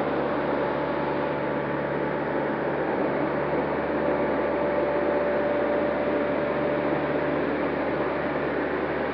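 Steady rush of air in the cockpit of a small electric airplane in flight, with a faint steady whine running under it.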